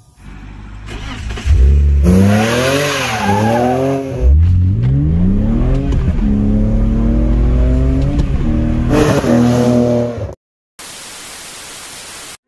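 BMW E30's engine accelerating hard, heard from inside the cabin: the pitch climbs, drops at a gear change about four seconds in, then climbs again until it cuts off suddenly. Near the end, a short burst of television-static hiss.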